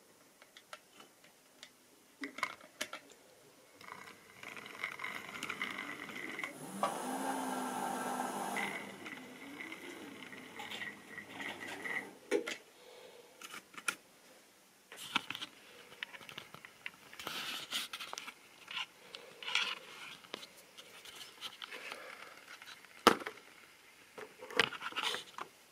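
A model railway train running on the track, a small electric motor whining steadily with the rattle of wheels on rail, for several seconds in the first half and loudest in the middle of that run. After it comes a series of sharp clicks and knocks as the model locomotives and wagons are handled on the track.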